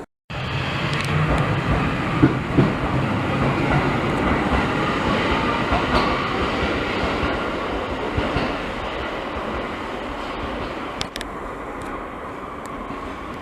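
Electric commuter train running on rails with wheel clatter. It cuts in abruptly, is loudest in the first few seconds, then gradually fades.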